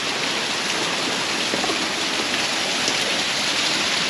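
Waterfall cascade rushing steadily.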